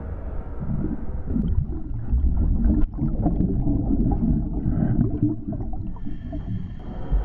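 Muffled underwater rumbling and gurgling of water, picked up by a camera in its housing during a dive.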